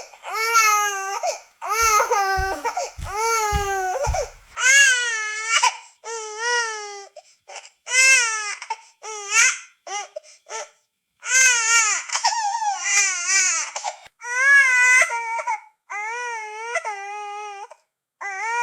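Baby crying: repeated wavering wails, each about a second long, broken by short gaps for breath. A few brief low thumps sound about two to four seconds in.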